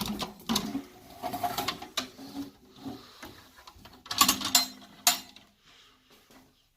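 Steel ammo-can stove being handled: irregular metal clicks, clanks and rattles as its lid and latch are worked, with a loud cluster of knocks about four to five seconds in.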